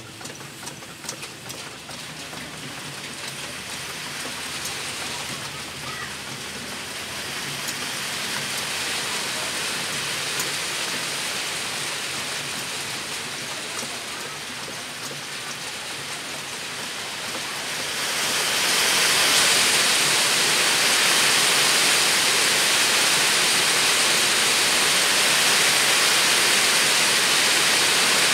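Steady rain-like hissing noise that slowly builds, then jumps louder about two-thirds of the way through and holds there.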